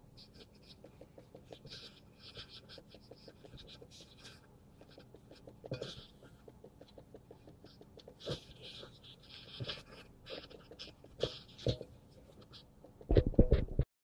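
Small objects being handled: light clicks and crinkling, with a few louder clicks and a quick run of loud knocks near the end.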